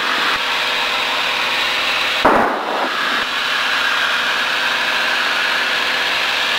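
Steady drone of a single-engine light aircraft's engine and propeller in cruise, heard inside the cockpit. A brief burst of noise cuts in about two seconds in.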